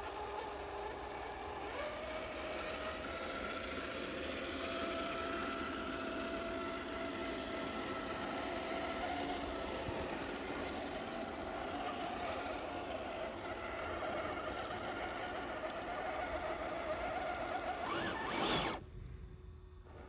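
Electric motor and gear drive of a scale RC crawler truck whining steadily, its pitch shifting slightly with the throttle. The sound swells briefly near the end, then drops away suddenly.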